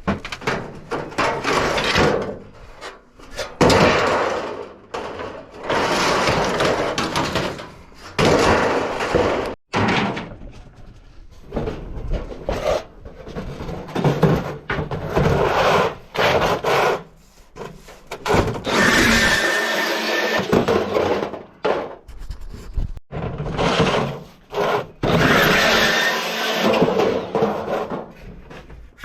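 Reciprocating saw cutting through scrap metal in repeated bursts of a few seconds each, stopping and starting again, with a thin whine in a couple of the later cuts.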